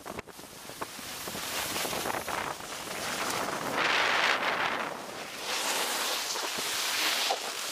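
Skis sliding and scraping over packed snow at speed, with wind rushing over the microphone. The hiss swells loudest about four seconds in and again near the end.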